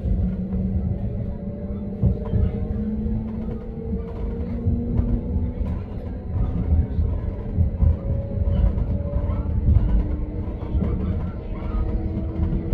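Passenger train running along the line: a steady rumble of wheels on rail, a motor whine that slowly rises in pitch, and scattered knocks.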